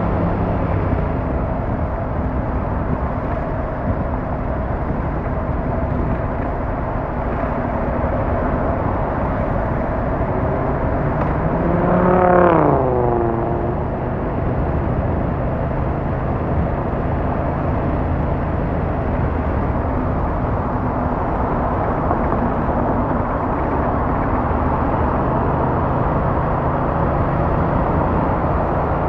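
Steady road and engine noise of a car being driven. About twelve seconds in, a louder engine note briefly rises and then falls in pitch.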